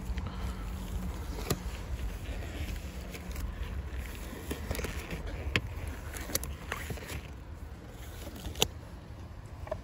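Steady low wind rumble on the microphone, with scattered small clicks and rustles from handling close to the mic.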